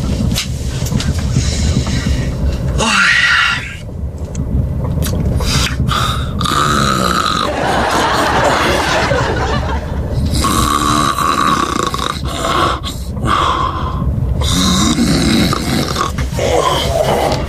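A person snoring loudly, harsh rasping breaths over and over, several of them ending in a high held whistle lasting about a second.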